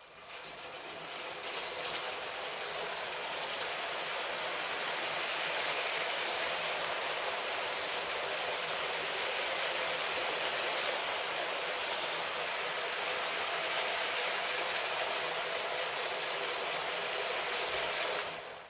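Long motorized LEGO City 60197 passenger train running on plastic track: a steady rolling rattle of many plastic wheels on the rails, with the hum of its electric motors. It builds up over the first couple of seconds and cuts off just before the end.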